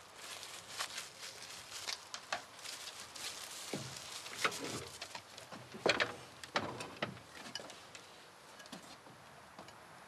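Scattered clinks and knocks of crockery and cups being handled on a table, the loudest about six seconds in.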